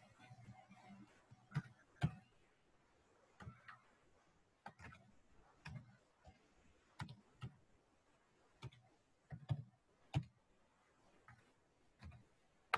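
Faint, slow, irregular clicks of computer keys being pressed, one or two a second, some with a soft low thud.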